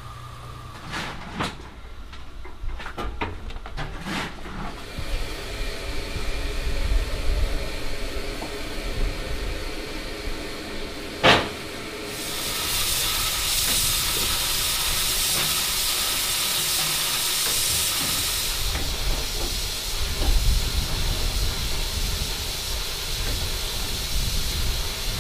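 ALCO 2-8-0 steam locomotive standing under steam, with steam hissing from it. A few sharp metallic clicks and knocks come early, and one sharp knock about eleven seconds in; just after it the hiss becomes much louder and stays steady.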